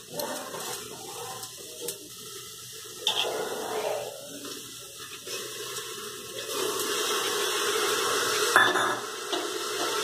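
Wet chopped greens and soaked ingredients tipped from a steel plate and a small bowl into an aluminium pressure cooker: soft wet rustling and scraping with a few metal knocks. Under it runs a watery hiss that grows louder about two-thirds of the way in.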